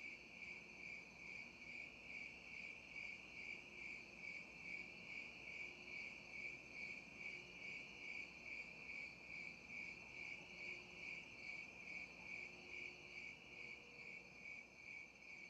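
Faint chirping of crickets, an even pulsing trill repeating about two to three times a second without a break.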